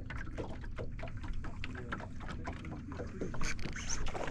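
Small irregular ticks and splashes of water lapping against an aluminium jon boat's hull over a low steady rumble.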